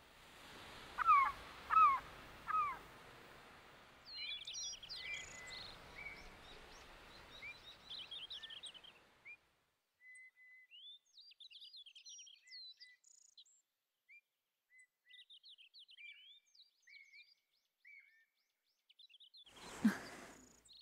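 Birds chirping over a soft steady hiss, with three louder calls about a second in. After about nine seconds the hiss drops out and only sparse high chirps remain. Near the end comes a short thump.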